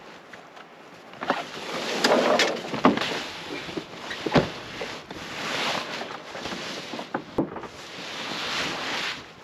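Eskimo Outbreak 450i pop-up hub ice shelter being pulled open: the nylon walls rustle in three swells, with several sharp snaps or knocks as the hubs and frame pop into place.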